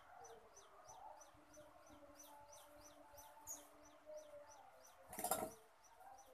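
A small bird chirps over and over, about three short, high, falling chirps a second. About five seconds in there is a brief scraping clatter of a spoon against a steel plate.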